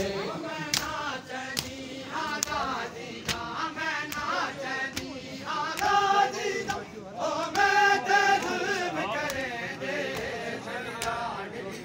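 A crowd of men chanting a noha in unison, with rhythmic matam chest-beating strikes landing a little more than once a second.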